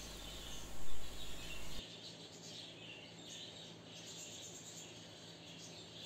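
Small aviary finches chirping with short, repeated high calls. A low background hum stops suddenly about two seconds in.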